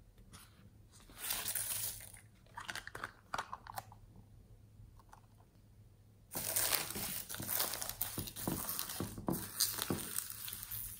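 Crinkly, crunchy handling of foam beads and plastic sequins: scattered short rustles and clicks at first, then about six seconds in a sudden, dense, continuous crackling as fingers dig into the bead- and sequin-covered slime trays.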